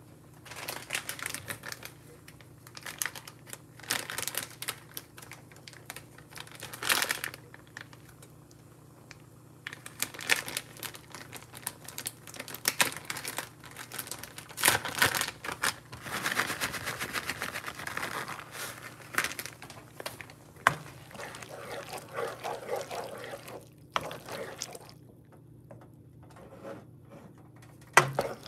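Crinkling and rustling in irregular bursts with short quieter gaps, then a knock near the end as a wooden spoon meets the pan.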